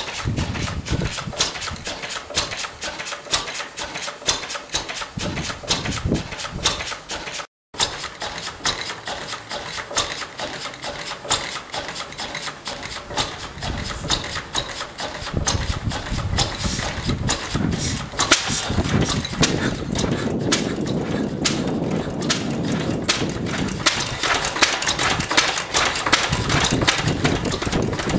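Vintage Lister single-cylinder stationary engine running, a steady train of sharp firing beats. After a brief break it continues, growing louder and fuller about two-thirds of the way through.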